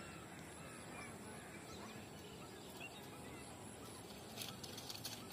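Faint outdoor ambience with scattered distant bird calls; about four seconds in, a cluster of sharp crackles as dogs crunch dry twigs in their mouths.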